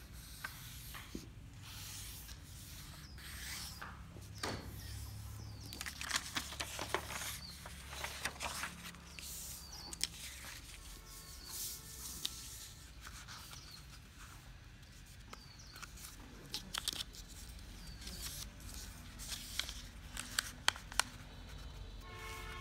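A sheet of white paper being folded by hand: rustling, crackling and sliding as fingers press and run along the creases, with sharp crinkles every second or so.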